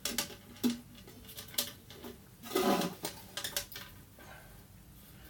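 A few light clicks and rattles from a soprano ukulele being shaken, its loose new string knocking about inside the hollow wooden body.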